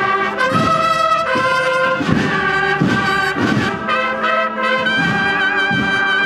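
Brass band playing slow music in sustained chords, each chord held about a second before the next.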